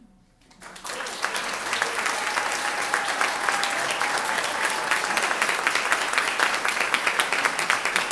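Audience applauding, beginning about half a second in and quickly building to a steady clatter of claps, with one pair of hands clapping close by.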